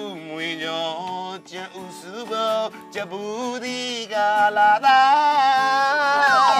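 A song: a voice singing over acoustic guitar, held louder and longer in the last couple of seconds, with a falling glide in pitch near the end.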